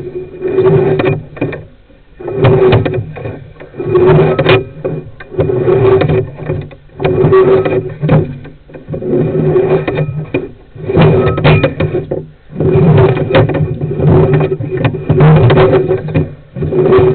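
Sewer inspection camera and its push cable working through the pipe. Scraping, rattling surges come every second or two over a steady low hum.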